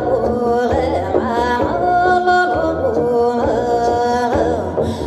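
Wordless joik-style singing over a plucked double bass, with sustained, bending vocal notes.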